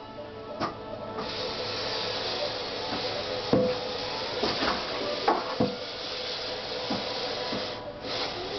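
Tap water running into a kitchen sink, starting about a second in, while dishes knock and clink now and then; the flow breaks off briefly near the end.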